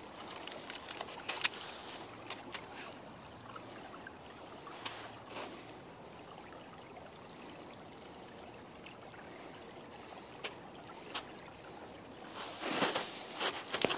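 Small stream running beside snow and ice, a steady wash of water, with a few light clicks and crunches scattered through it and a louder stretch of crunching near the end.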